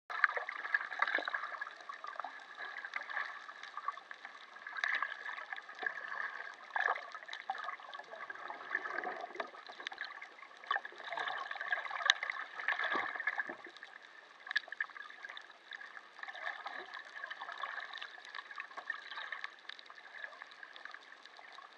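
Water heard underwater through a camera: a continuous watery hiss with scattered bubbling, gurgling, and many small clicks and crackles.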